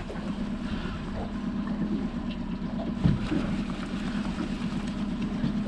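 Outboard motor running steadily, a low even hum, with wind and water noise over it and a light knock about three seconds in.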